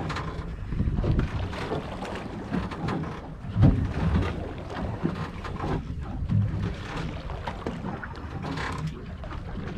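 Wind buffeting the microphone aboard a drifting boat: an uneven low rumble with a louder bump about three and a half seconds in.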